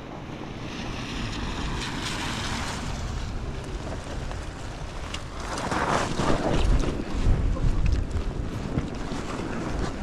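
Wind rushing over the microphone of a handlebar camera on a fat-tyre electric bike riding through snow. About halfway through, the 26x4-inch fat tyres add a rougher, louder rumble as the bike crosses snow-covered ground.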